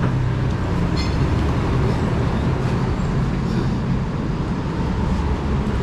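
Steady low rumble of motor-vehicle traffic.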